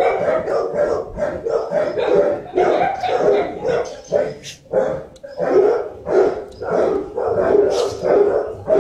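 Dogs barking over and over, several barks a second, with a short lull about five seconds in.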